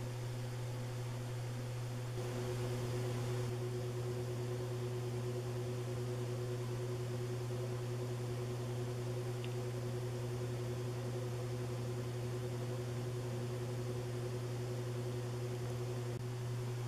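2005 Banvil Spinner 90 cm ceiling fan running, its small motor giving a steady hum over a soft rush of moving air. It gets slightly louder about two seconds in.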